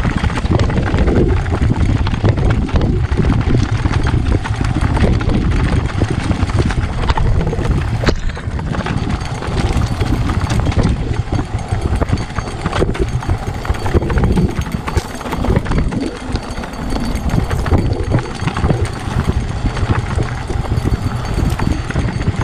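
Mountain bike ridden fast down a rocky, loose-stone trail: the tyres crunch over gravel and the bike rattles and clatters over the bumps, with a constant deep rush of wind on the microphone.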